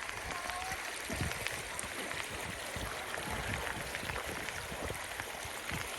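Rain and floodwater making a steady rushing noise, peppered with fine crackling ticks.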